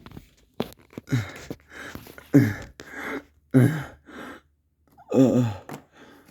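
A person's voice making short breathy gasps and sighs, about four in a row, each one dropping in pitch, with breaths in between.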